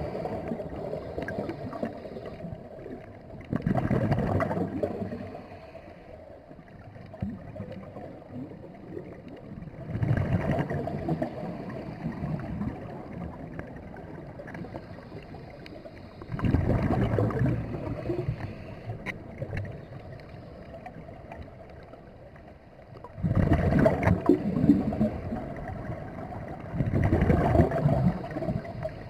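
Scuba regulator breathing underwater: five bubbling bursts of exhaled air, each a second or two long and about six seconds apart, with a faint hiss in the quieter stretches between.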